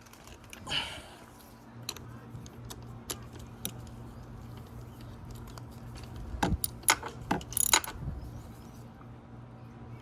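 Light metallic clinks and rattles of hand tools and small metal parts handled during work on a dirt bike, with a cluster of louder clicks about six to eight seconds in. A faint low steady hum runs underneath.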